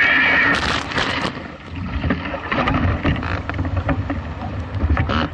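Wind and water noise of a foiling Moth sailing dinghy under way: an uneven rushing with a deep rumble and scattered splashy hiss. Background music cuts off about half a second in.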